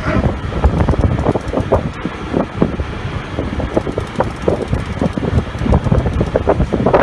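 Wind buffeting the microphone in irregular gusts over a low, steady rumble from the fishing boat's engine.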